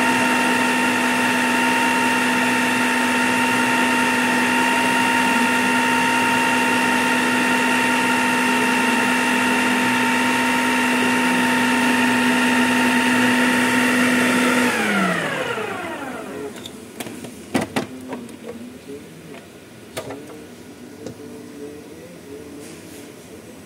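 Multi-Chef food processor motor running steadily at speed 4 whipping eggs, with a steady whine. About fifteen seconds in it switches off and winds down, its pitch falling. A few sharp clicks and knocks follow.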